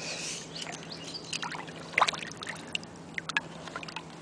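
Shallow river water lapping and washing over shells and sand at the edge, a soft wash with scattered small splashes and clicks, the loudest about two seconds in.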